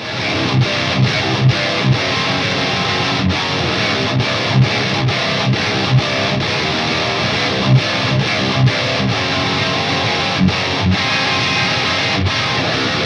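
High-gain distorted electric guitar played alone through an ENGL Fireball 100 tube amp head on its lead channel: heavy metal rhythm riffs with accented low chugs and a few brief stops, heard through a 2x12 cabinet impulse response blending H75 and V30 speakers.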